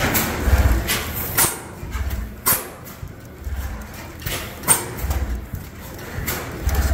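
Horizontal Peerless gas engine running slowly, firing unevenly: a low exhaust thump every second or so, with a longer pause near the middle. Sharp clicks from the valve and igniter gear come between the thumps.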